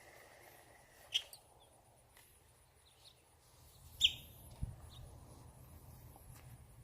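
Short, sharp bird chirps a few seconds apart, the loudest about four seconds in, with a brief low thump soon after.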